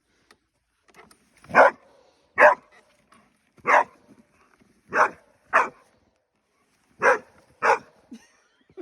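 A dog barking, seven loud single barks about a second apart with short pauses between.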